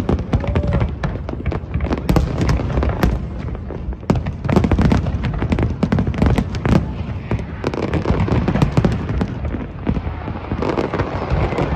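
Aerial fireworks shells bursting in quick succession, many sharp bangs and booms a second with no let-up.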